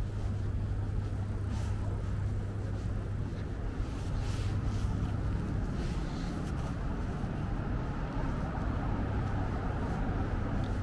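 City street traffic: a steady low engine hum under general road noise.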